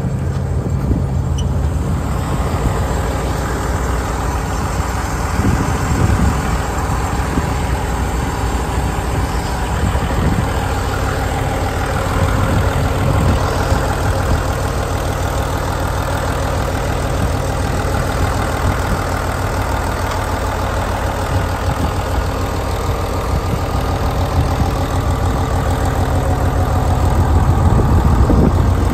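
Komatsu PC600LC-8 excavator's six-cylinder turbocharged diesel engine running steadily, getting a little louder near the end.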